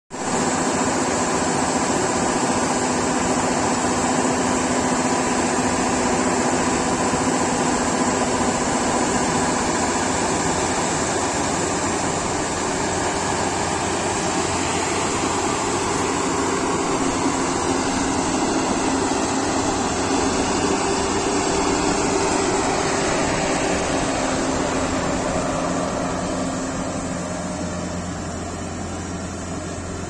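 Yanmar YH700 combine harvester running steadily as its unloading auger discharges threshed paddy through the spout: a constant machine drone with steady whining tones, easing slightly quieter over the last few seconds.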